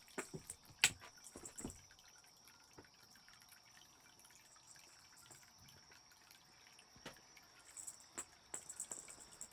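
Faint, scattered light clicks and taps of cats playing with a small wind-up toy, with a quick run of ticks near the end.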